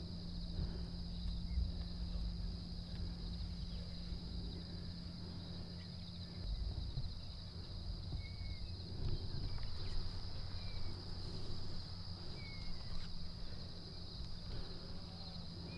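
Steady, high-pitched chorus of crickets trilling, with a low rumble underneath and a few short, high chirps in the middle.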